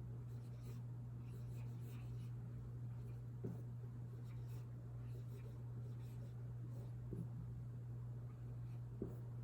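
Faint scratching of writing, short pen strokes, with a few light taps of the pen, over a steady low hum.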